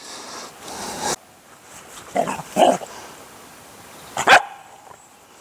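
Belgian Malinois puppy barking: two short barks a little after two seconds in, then a sharper, higher one about four seconds in. A brief rustle of movement comes first.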